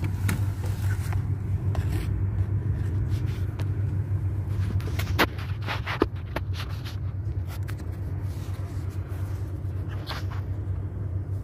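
Steady low machine hum, with a few light clicks about five and six seconds in and again near the end.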